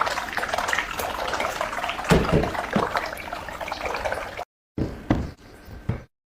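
Water running and splashing, with a few knocks a little after two seconds in; the sound is cut off abruptly twice.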